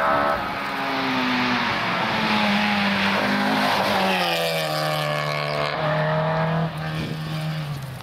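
Historic rally car engine running hard at high revs as the car goes through the stage, its pitch stepping between gears and falling about halfway through. The engine note drops in level near the end.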